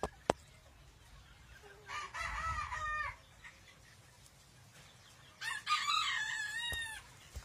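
Rosecomb bantam rooster crowing twice, each crow lasting about a second or a little more, with a sharp click just before the first.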